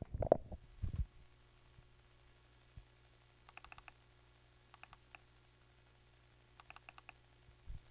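Faint computer mouse clicks in three short clusters of quick clicks, over a low steady hum.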